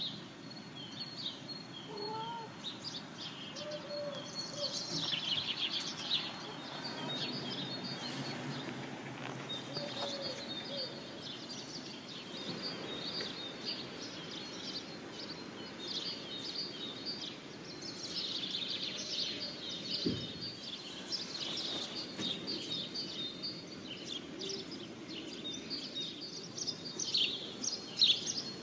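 Birdsong: many small birds chirping and twittering over a steady background noise.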